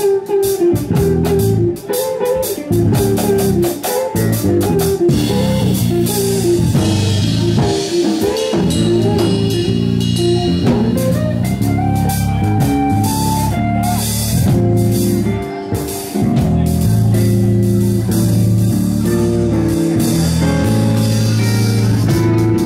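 Live jazz trio: a red hollow-body electric guitar plays melodic lines over a drum kit with ride cymbal and a bass underneath.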